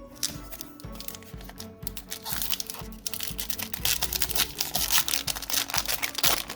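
Foil Pokémon booster pack wrapper crinkling and being torn open, loudest from about two seconds in until near the end, over background music with a steady beat.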